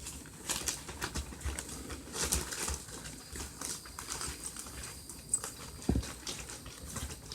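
Newborn puppies shuffling and scrabbling about: faint irregular scuffles and light taps, with a single dull thump about six seconds in.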